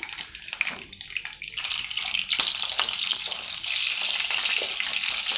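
Brinjal slices shallow-frying in hot oil in a pan, sizzling with a few sharp crackles and pops; the sizzle swells about a second and a half in and then runs on steadily.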